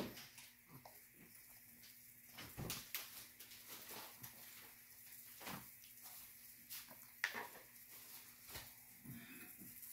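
Scattered light clicks and taps of spoons and dishes during a meal, the sharpest about seven seconds in, over a faint steady hum.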